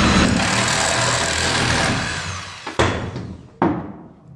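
Reciprocating saw cutting through the wooden top plate of a stud wall, running steadily for about two seconds and then winding down. Two sharp knocks follow near the end.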